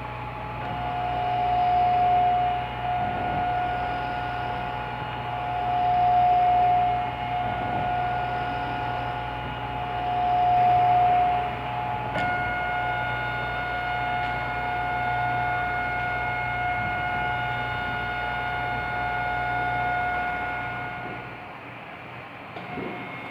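Stepper motor of a homemade bottle-squeeze ventilator running with a steady whine, swelling louder about every four seconds in the first half. A click about twelve seconds in shifts its pitch, and the whine fades out near the end.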